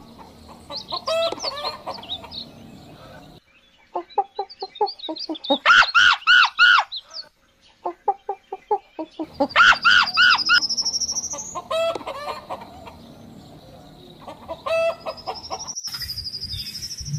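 A flock of chickens clucking and calling, with a rooster crowing; the loudest stretch is a run of repeated calls in the middle.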